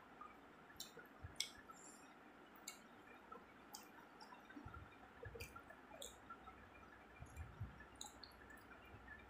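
Faint eating sounds: scattered wet clicks and smacks from chewing, with soft squishes of fingers working rice on a plate.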